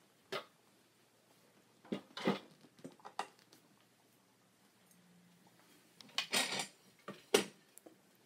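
Several separate clunks and clatters of a pressure cooker's lid and other kitchen things being handled and set down on a countertop. The loudest come about two seconds in and again around six seconds in, with a last sharp knock a little later.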